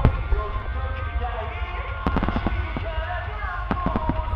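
Aerial firework shells bursting in a rapid series of sharp bangs, clustered about two seconds in and again near the end, with music playing underneath.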